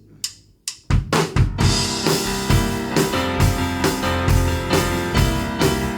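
Live band of drum kit, bass and guitar starting up a fast song: a few light clicks, then the whole band comes in loud about a second in and plays on with a steady beat of about two drum hits a second.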